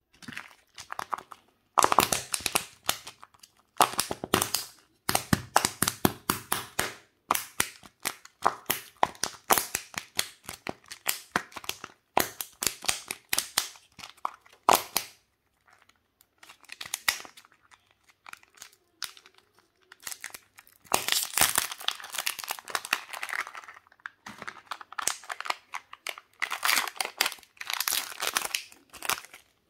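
Crinkling and crackling of Kinder Joy egg packaging handled by fingers: the plastic eggs clatter, and the wrapping and the toy's thin plastic bag crinkle and tear. It comes in bursts of dense crackle, with a quieter stretch in the middle.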